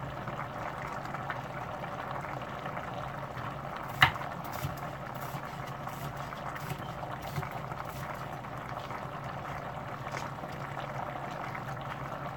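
Pan of seasoned chicken cooking on a stove burner, giving a steady simmering hiss. A single sharp click about four seconds in, with a few fainter clicks later.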